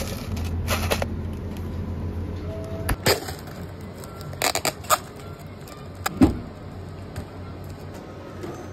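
A plastic cup of ice being handled: the peel-off lid crinkles and the ice rattles and clinks, in a few short clusters of clicks, with the loudest knock about six seconds in. A steady low hum in the first three seconds.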